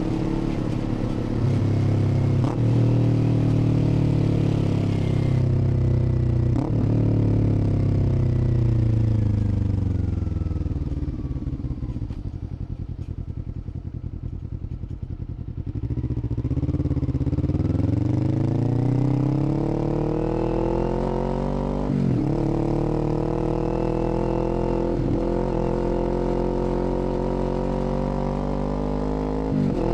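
2021 Kawasaki Z400's 399 cc parallel-twin engine under way. The revs fall steadily as the bike slows to a low engine speed about halfway through, then climb again as it accelerates. Brief breaks near the end are gear changes up through the gears.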